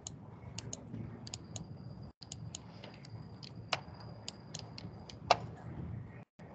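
Computer mouse buttons clicking: a series of light, sharp clicks, many in close pairs, with two louder clicks in the second half, over a low steady hum.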